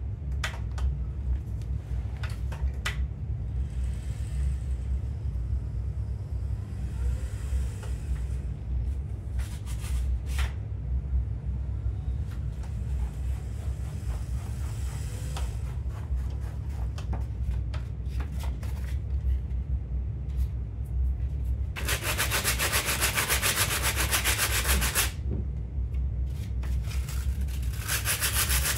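Power-tool wire wheel scrubbing a piece of oak. The motor hums steadily with light, scattered scratches and clicks, then the wheel bites hard into the wood for a few seconds of loud continuous scrubbing about three-quarters of the way through, and again near the end.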